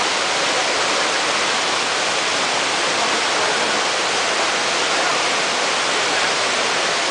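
A small waterfall rushing steadily over rocks: an even, unbroken roar of falling water.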